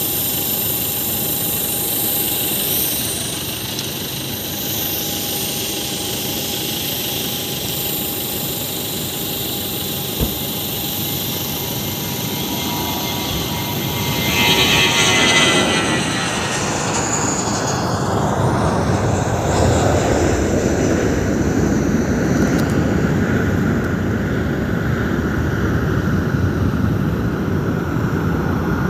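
Airbus A320-200 jet engines at takeoff thrust: a steady whine as the airliner rolls down the runway. About halfway it passes with a falling pitch, and the sound turns to a deep rumble as it climbs away.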